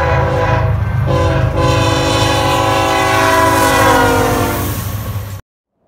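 Locomotive air horn sounding a chord over a steady low rumble: two short breaks in the first second and a half, then one long blast whose pitch falls slightly, cutting off suddenly near the end.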